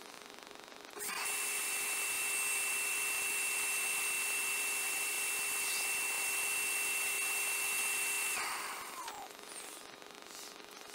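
Vacuum motor of a robot's suction gripper running with a steady high whine and hiss, switched on about a second in and switched off past the eight-second mark, spinning down with a falling pitch.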